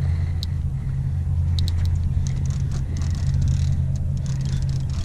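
A steady low rumble, with a few faint clicks and taps over it.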